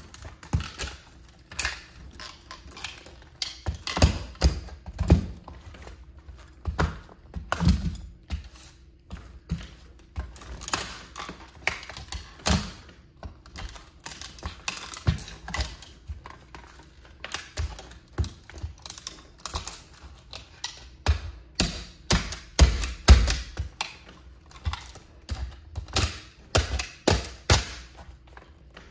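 A red toy model of a Plymouth Prowler being crushed under high-heeled platform sandals: a steady run of irregular cracks, snaps and clicks as its plastic and metal parts give way, mixed with heavier thuds as the heels press down.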